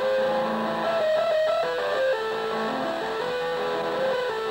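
Guitar music played back from a cassette recorded on a 1976 Bang & Olufsen BeoCord 1100 deck, heard through an external speaker. The playback sounds distorted, which the owner thinks may come from ageing capacitors or his improvised input wiring.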